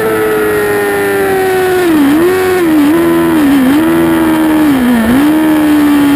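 2008 Yamaha R6's inline-four engine heard onboard, its revs falling as the bike slows from high speed. Then come several downshifts, each a quick dip and recovery in engine pitch.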